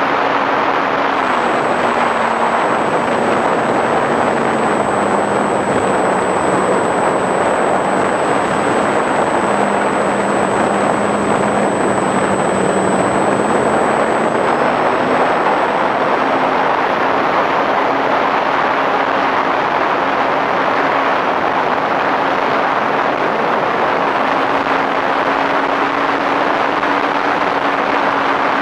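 Flyzone Switch RC plane's electric motor and propeller humming in flight, heard from an onboard camera under a steady rush of air. The hum drops in pitch a couple of seconds in and rises again about halfway through as the throttle is eased and opened.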